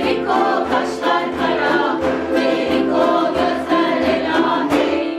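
A group of voices singing together to strummed ukulele chords, in a steady rhythm, with a final strum near the end.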